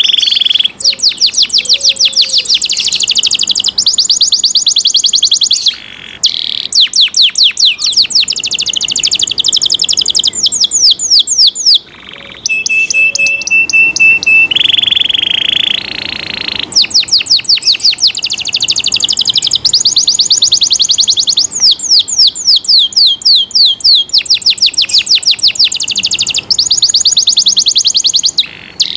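Domestic canary singing nonstop: long, fast trills of rapidly repeated notes, broken by a few short pauses. Near the middle it holds several clear whistled notes, each one step higher than the last, before the trills resume.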